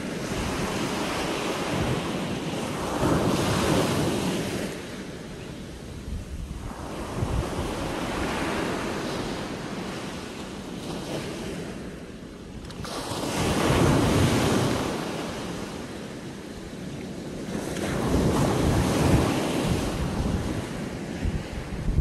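Small sea waves breaking and washing up a sandy shore, the surf swelling and falling back, loudest three times. Wind buffets the microphone with a low rumble underneath.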